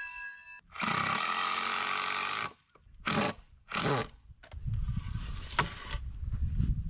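Cordless circular saw whining down after a cut, then running again at full speed for about two seconds before stopping. Two short noises follow near the middle, then a low rumble.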